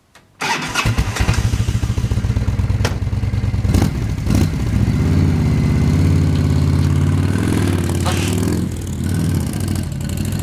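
Motorcycle trike engine starting about half a second in, idling with a pulsing beat, then running under throttle as the trike climbs a loading ramp into a toy hauler. A few sharp clunks come along the way.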